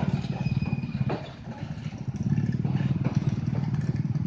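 Heavy tandem-axle box truck's diesel engine running close by, a loud rapid low throb that dips about a second in and then comes back, with motorcycle engines passing alongside.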